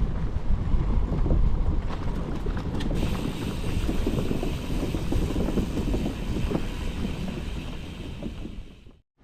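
Strong wind buffeting the microphone in heavy, gusting rumbles while riding a gravel bike, fading out near the end.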